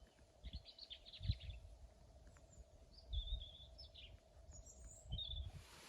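Faint songbird chirping: a quick trill about half a second in, then short high calls around three seconds and near the end, with a few low thuds underneath.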